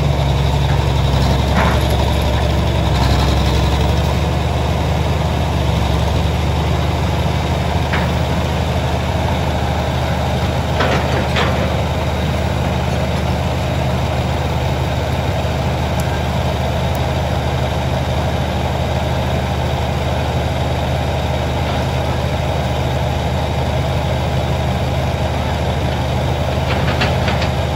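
Diesel engine of a heavy tracked excavator running steadily with a low, even hum, with a few short knocks here and there.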